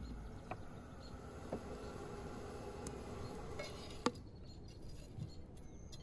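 Faint outdoor ambience with a few scattered light clicks and one sharp tap about four seconds in.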